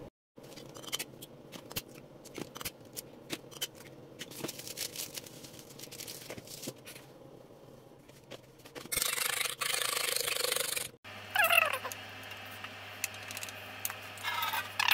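A fork beating raw eggs in a bowl: a loud, even, scratchy swishing for about two seconds, most of the way through. It comes after several seconds of scattered light taps and clicks from eggs being cracked and a fork on crockery. Near the end, a few short squeaky wavering sounds over a low hum.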